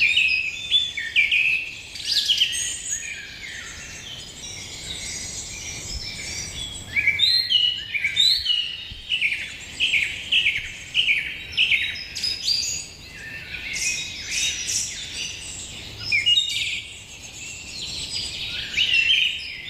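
Small birds chirping and twittering, several at once, in busy bursts of short, quick notes with brief lulls between.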